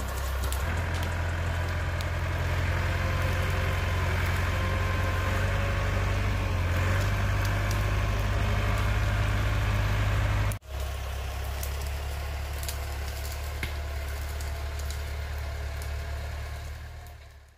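Farm tractor engine running steadily with a strong low hum. About ten and a half seconds in it cuts abruptly to a lower level, then fades out at the end.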